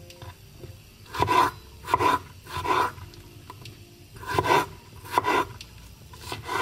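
Chef's knife slicing strawberries on a wooden cutting board: about six separate cuts, three in quick succession, a short pause, then three more.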